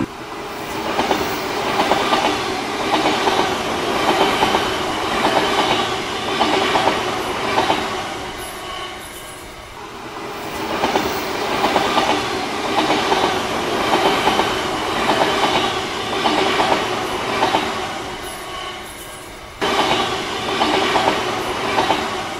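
Toy bullet train running on plastic track: a steady motor whir with rhythmic clicking about twice a second, swelling and fading as it circles the figure-eight loop. The level jumps suddenly about three-quarters of the way through.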